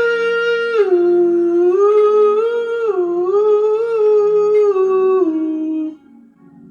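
A high voice humming a slow wordless melody in long held notes that glide from one pitch to the next, stopping about six seconds in, over a soft sustained background chord.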